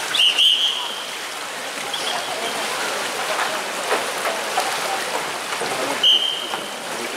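Referee's whistle giving short shrill blasts: one just after the start, a brief one about two seconds in, and another about six seconds in. Beneath it, steady splashing of paddles and kayaks in the pool.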